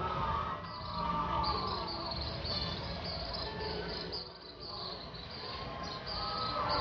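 Insect chirping in short, high, evenly repeated pulses, about three a second, starting just under a second in.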